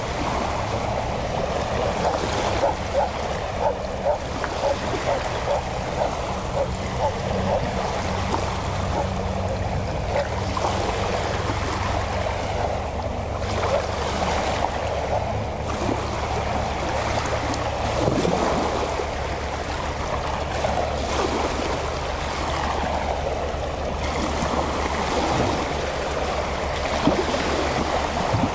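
Small waves lapping and splashing at the shore, over a steady low hum of a boat motor running out on the water.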